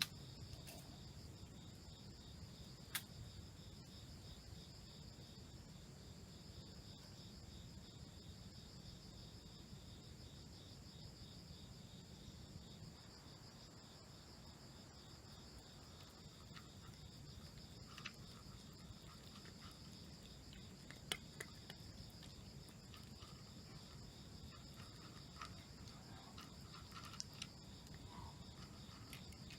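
Faint, steady, high-pitched insect trilling, like crickets, with a few isolated sharp clicks.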